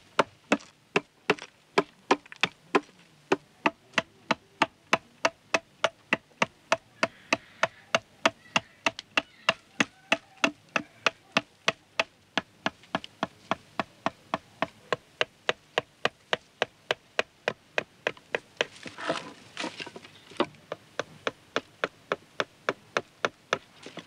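Tool blade chopping into wood in a steady rhythm, about three sharp strokes a second, as a wood carver shapes a wooden mask.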